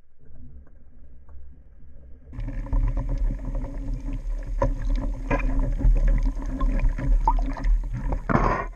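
Underwater noise picked up by a camera on a speargun: a low rumble with water rushing past the housing, starting abruptly about two seconds in, with scattered small clicks and knocks, and a louder rushing surge near the end.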